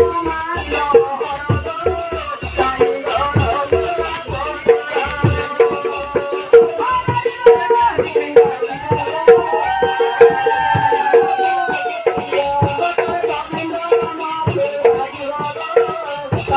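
Live folk music: a voice singing through a microphone over a barrel drum and rattling hand percussion, keeping a quick, steady beat.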